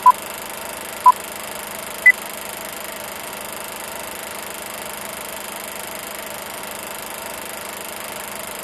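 Film countdown-leader beeps: three short tones about a second apart, the first two at the same pitch and the third higher. They sound over a steady mechanical whir that runs on after the beeps stop.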